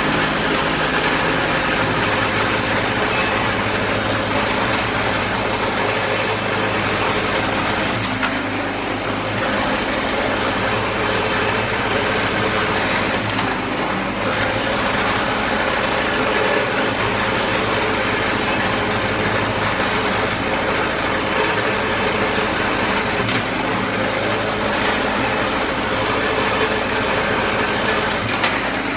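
Harbor Freight 6.5 horsepower single-cylinder gas engine running steadily, driving a pitman-arm log splitter while rounds of wood are fed to the wedge.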